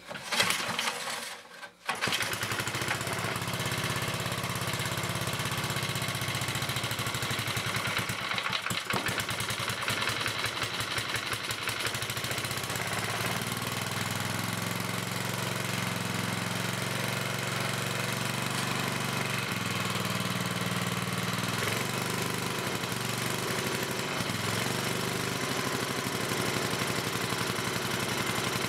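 Single-cylinder 5 hp Briggs & Stratton generator engine on its first start after a carburetor rebuild: it fires within the first second, stumbles once, and then settles into steady running.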